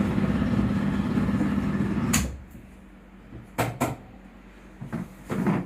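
Rustling and shuffling as a patient shifts and gets up from a treatment table, loud and close for about two seconds, then a few sharp clicks and knocks.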